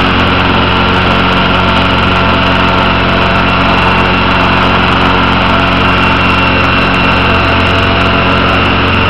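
Radio-controlled scale helicopter running at a steady rotor speed: an even drone of motor and rotor blades holding one pitch throughout.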